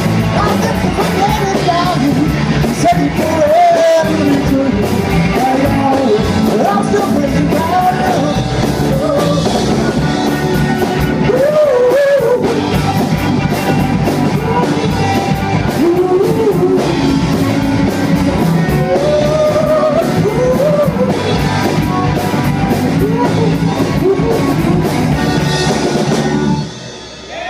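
Live rock-and-roll band playing: a sung lead vocal over electric guitars and drums. The music stops abruptly near the end.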